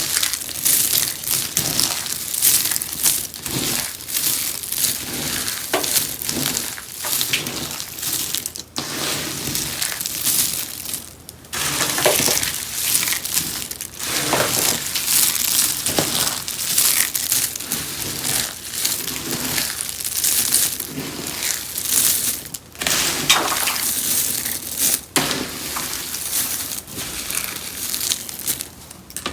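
Rose soap being crunched: a dense run of crisp crackling and crumbling, with a few brief pauses between handfuls.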